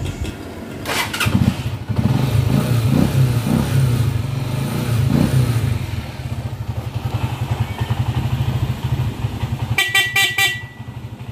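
Motorcycle engine started on its newly rewired electric starter about a second in, revved a few times, then running with an even pulsing beat. Near the end the electric horn beeps several short times.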